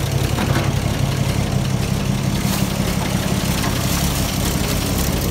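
Six-cylinder engine of a 1932 Chevrolet fire truck idling steadily with a low hum, just after a start.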